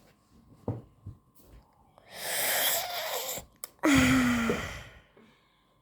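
Two loud, breathy, wheezing sounds from a person, the second louder and with a low voiced tone in it.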